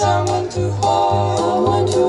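Three women singing together in 1940s close-harmony style over a swing accompaniment, with a steady bass line of about two or three notes a second.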